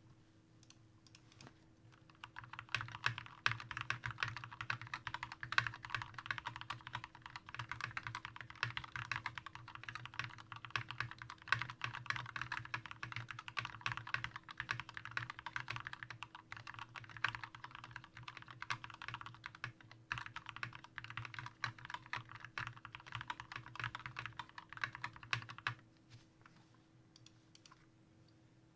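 Continuous typing on a Glorious GMMK TKL mechanical keyboard with lubed Gateron Yellow linear switches and thick PBT keycaps. The typing starts a couple of seconds in, breaks briefly about two-thirds of the way through, and stops a few seconds before the end.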